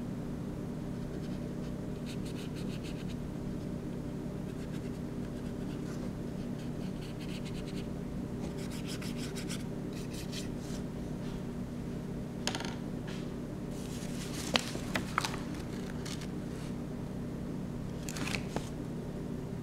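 A paintbrush stroking across paper in scratchy passes of a second or two, over a steady low hum, with a few sharp clicks in the second half.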